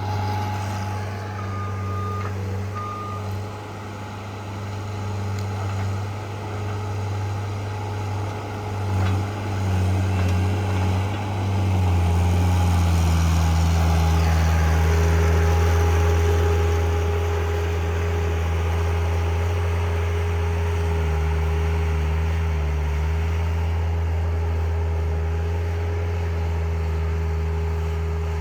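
John Deere skid steer's diesel engine running steadily under working load, with a steady whine over the engine. The engine picks up and gets louder about twelve seconds in. Two short beeps sound in the first few seconds.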